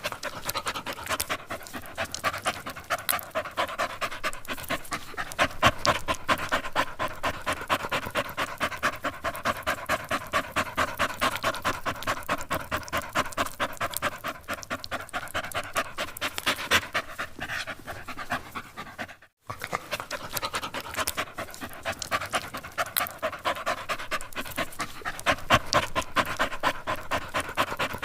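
Dog panting rapidly and steadily, about four quick breaths a second. It breaks off for a moment about two-thirds of the way through, then carries on.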